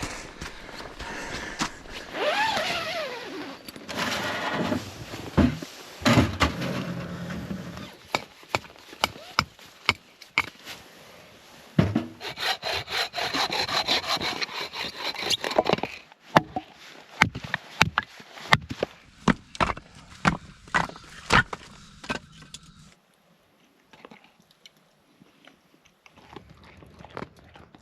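Firewood being cut with a hand saw in repeated strokes, with scraping, then a quick run of sharp knocks and cracks of wood.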